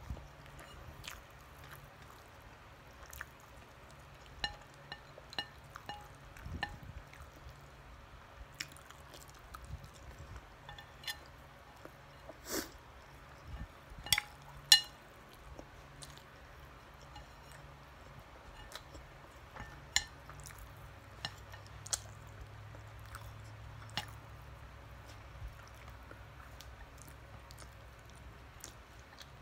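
Close-up eating: soft chewing and wet mouth clicks of a person eating siomai and rice, with a few light clinks of a spoon on a plate, the loudest about halfway through.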